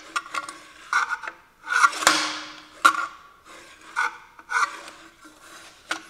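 The spring-loaded metal blade guard of an old Rockwell circular saw being worked back and forth by hand, rubbing and scraping metal on metal in repeated strokes, with a few sharp clicks. The guard moves stiffly and dry, in need of lubrication.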